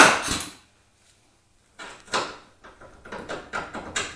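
An impact wrench's rattling hammering stops within the first half-second. After a short pause comes an uneven run of light metallic clicks and clinks as the loosened 17 mm wishbone mounting bolt is worked out by hand.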